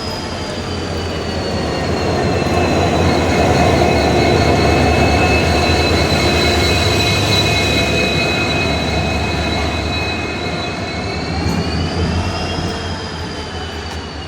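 WDP4D diesel locomotive's EMD 16-710 two-stroke V16 engine running with its characteristic hum: a low rumble under a high whine that dips slightly, holds steady, then rises again near the end, the whole growing louder toward the middle.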